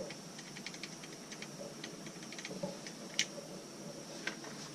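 Faint scattered clicks and small taps of hands working on a Weller soldering gun, checking its loose parts, with one sharper click about three seconds in. A faint steady high-pitched hiss runs underneath.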